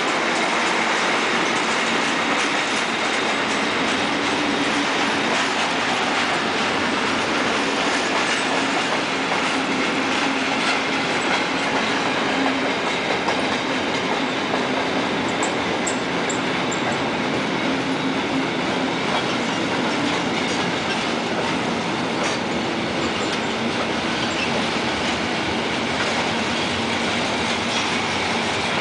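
Freight train of tank, flat and covered sliding-wall wagons rolling past at speed close by: a steady, unbroken noise of steel wheels running over the rails.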